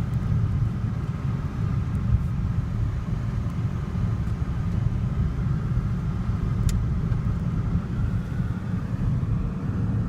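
Steady low rumble of a car driving, heard from inside the cabin: road and engine noise, with a single faint click about two-thirds of the way through.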